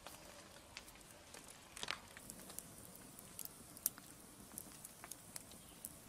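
Faint, irregular crackling and ticking of wood embers burning in a small clay fireplace, with one louder crack about two seconds in.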